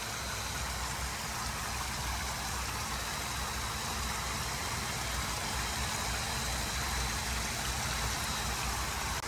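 Water raining down from a cooling tower's fill into its basin: steady heavy splashing, the tower draining down after the condenser pump has stopped, with a low rumble underneath.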